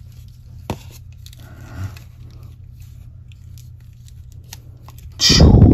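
Plastic action figure being handled and posed: a few small clicks and soft scrapes as the limbs are moved, then one loud, brief rustling bump of hands close to the microphone near the end.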